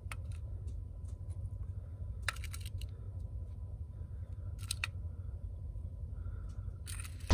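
Light clicks of miniature clay bricks being set down onto a toy trailer's plastic bed and against the other bricks, a few scattered clicks, over a steady low hum.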